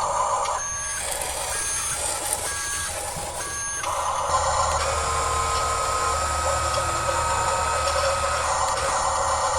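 Remote-control Huina 1536 truck sounding its reversing beeper, four beeps about a second apart, over the whir of its electric drive motor. The motor whir then carries on steadily after the beeps stop.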